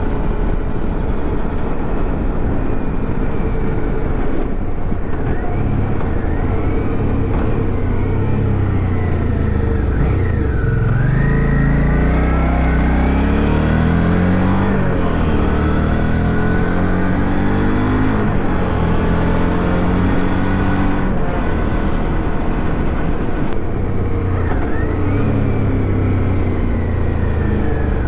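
Suzuki V-Strom 650's V-twin engine running under way with wind noise. About ten seconds in, its pitch climbs steadily for several seconds as the bike accelerates, then it settles back to a steady cruise.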